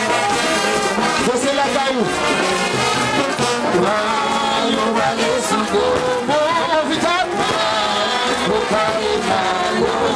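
Haitian rara band playing: brass horns carrying a melody that bends and slides in pitch, with singing voices, loud and continuous.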